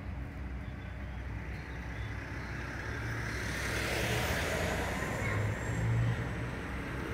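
A car passing on the road: its tyre and engine noise swells to its loudest about four to six seconds in, then eases off, over a steady low traffic hum.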